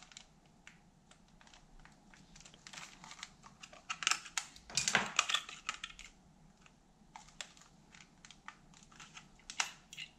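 Irregular sharp clicks and crackles from handling the plastic handle of an electric flyswatter, densest about four to six seconds in.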